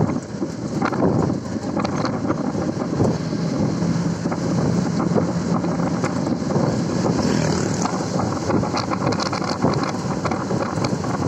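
Road and engine noise of a moving vehicle heard from on board, with wind buffeting the microphone; a steady low hum stands out for a few seconds in the middle.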